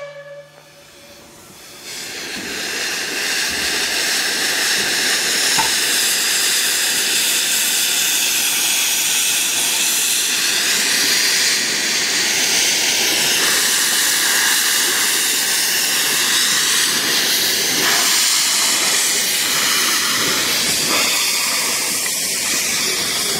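15-inch-gauge steam locomotive 'John of Gaunt' pulling away with steam hissing from low at the front of the engine, typical of open cylinder drain cocks: a loud, steady hiss that comes in about two seconds in and holds.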